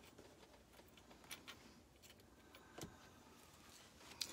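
Near silence: room tone with a few faint, light clicks scattered through it, from handling small pieces on a tray.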